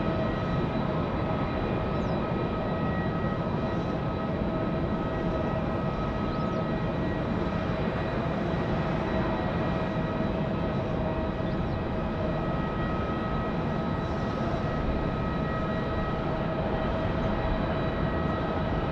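Jet airliner engines running at a steady pitch: a constant whine of several tones over an even rush of noise, neither rising nor falling.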